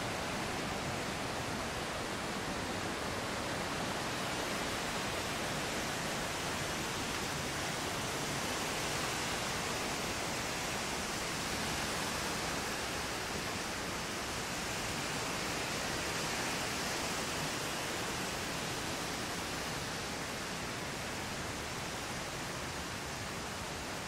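Steady rush of ocean surf washing onto a sandy beach, swelling a little now and then.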